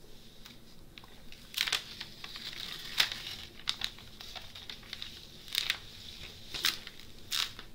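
Plastic cover film of a diamond-painting canvas crinkling as the canvas is unrolled and turned over by hand: a string of sharp crackles, roughly one a second.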